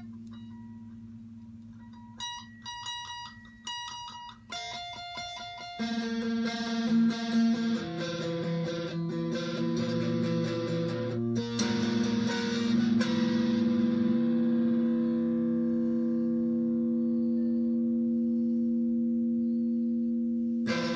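Les Paul-style electric guitar played slowly through effects over a held low note: a few short high notes, then picked notes from about six seconds in, then a chord left to ring out until fresh notes come in near the end.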